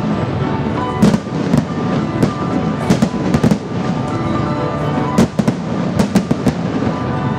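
Aerial firework shells bursting in an irregular series of sharp bangs, several coming in quick clusters, over music playing throughout.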